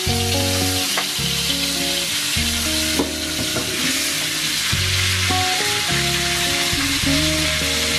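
Hot oil sizzling steadily in a wok, with a few light knocks of a metal spatula, over background music.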